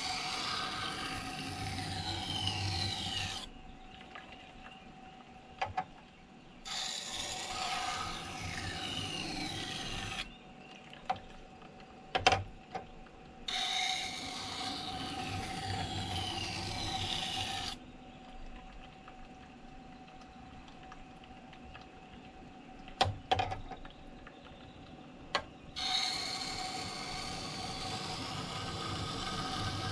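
Knife blade ground against the turning stone of a wet sharpening machine: four passes of a few seconds each of rasping, scraping steel over the machine's steady motor hum, with a few sharp clicks in the quieter gaps between passes. These are finishing passes to clean up the edge.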